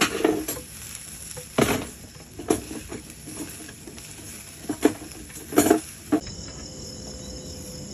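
Meat sizzling on a charcoal grill, the glowing coals crackling with several sharp pops. From about six seconds in, crickets chirp steadily in the background.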